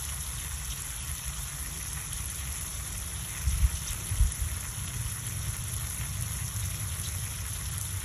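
Outdoor background noise: a steady hiss over a low, unsteady rumble, with two brief low thumps about three and a half and four seconds in.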